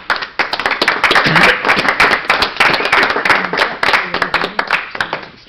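Audience applauding the end of a talk: many hands clapping together, starting suddenly and dying away near the end.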